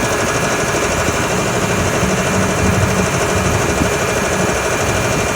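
Piston air compressor running steadily with a rapid, even pulsing; the unit is faulty, with no compression at the piston and a vibration while running.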